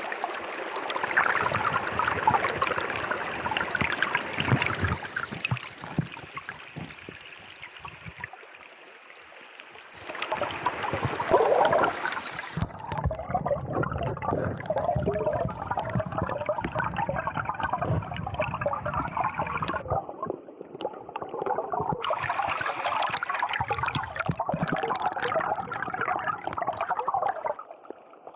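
River water flowing and gurgling steadily, dropping to a quieter stretch a few seconds in and coming back louder about a third of the way through.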